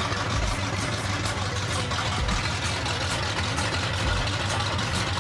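Chevrolet 350 small-block V8 idling steadily.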